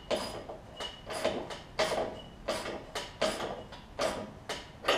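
3/8-inch ratchet and 3/4-inch deep-well socket working the front deck-hanger nut on a riding mower: a string of sharp metallic clicks and clinks with a light ring, about two to three a second. The nut is being turned to raise and level the mower deck.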